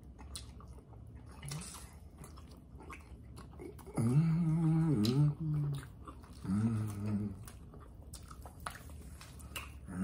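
Person eating, with quiet chewing and mouth clicks, and a low hummed "mmm" of enjoyment, a longer one about four seconds in and a shorter one a couple of seconds later.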